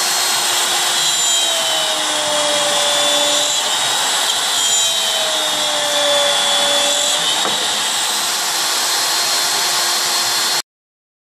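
ShopSabre 23 CNC router cutting a wooden board: the spindle whines steadily while a lower tone slides and settles twice as the head moves. The sound cuts off suddenly near the end.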